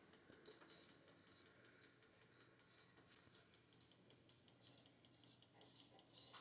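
Near silence: faint ticking and a faint low hum from a 1950s RCA Victor 45-EY-2 record player turning a 45 rpm record. No music is coming through its speaker, a fault that fresh capacitors have not cured.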